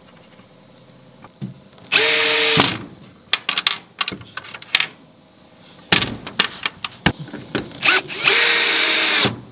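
Makita cordless drill running in two short bursts, about two seconds in and again near the end, driving a screw through a small black metal latch into the coop's wooden frame. Light clicks of handling are heard between the bursts.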